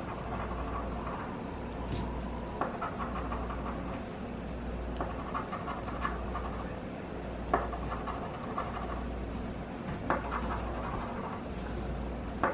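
Scratching the coating off an instant lottery scratch ticket: repeated short scraping strokes with a few sharper clicks, over a steady low hum.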